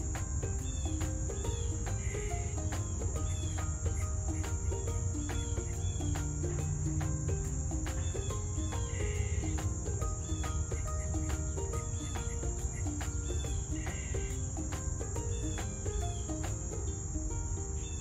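Steady high-pitched insect drone with short chirps every few seconds, over soft background music.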